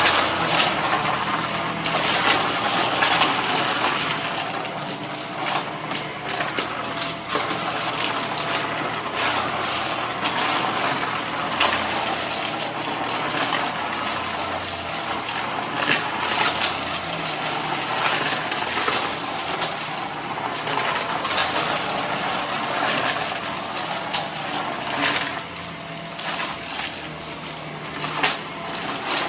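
Vacuum cleaner running steadily while sucking up a scattered dry mess, the debris clattering and crackling as it is drawn through the cleaner.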